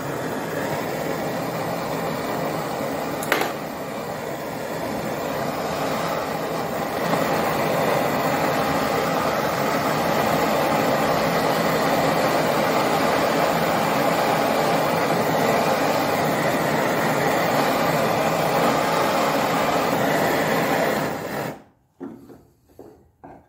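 Jeweler's torch flame burning steadily while it heats a fluxed silver joint to flow the solder. It grows louder about seven seconds in, then cuts off suddenly near the end, followed by a few light knocks.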